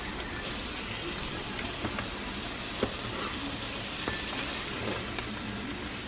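Bacon frying in a pan, a steady sizzling hiss, with a few light clicks and taps of a spatula handling the food.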